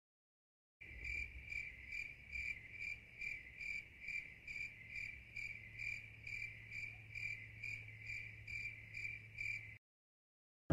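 Insect chirping in an even rhythm, about two chirps a second at one high pitch; it starts abruptly just under a second in and cuts off abruptly near the end.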